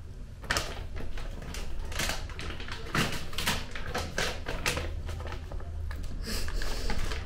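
Plastic snack packet crinkling and crackling in irregular bursts as it is handled and tugged at to open it.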